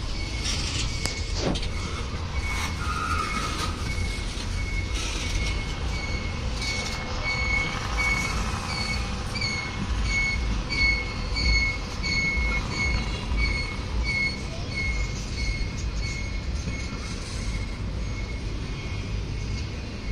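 Norfolk Southern intermodal freight train's well cars rolling slowly past with a steady low rumble, while a high squeak from the wheels repeats evenly about every two-thirds of a second.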